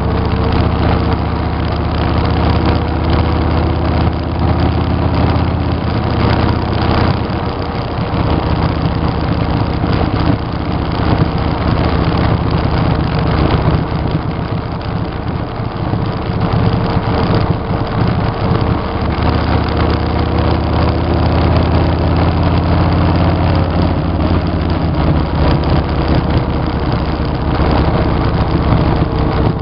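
Motorcycle engine running under way with steady wind noise rushing past. The low engine note eases back for a stretch in the middle and comes up again about two-thirds of the way through.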